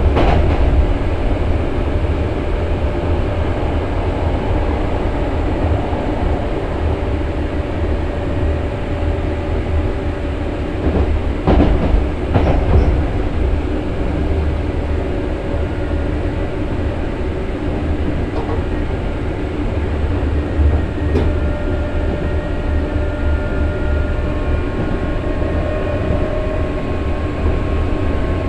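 Running noise inside a Nose Electric Railway 5100-series resistance-controlled electric train: a steady rumble of wheels and motors, with two knocks of the wheels over rail joints about halfway through. In the last few seconds a whine rises in pitch.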